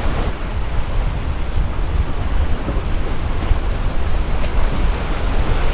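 Wind buffeting the microphone in a steady low rumble, over surf washing and breaking against jetty rocks.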